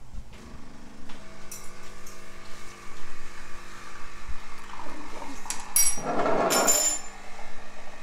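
An electric kitchen appliance running with a steady motor hum, with a few sharp clicks and a louder rushing burst lasting about a second, about six seconds in.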